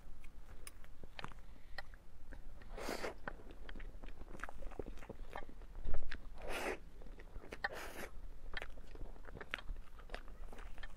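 Close-miked eating of a soft mirror-glazed mousse cake: a spoon scooping, then wet mouth and chewing sounds with small clicks, loudest about six seconds in as the spoonful goes into the mouth.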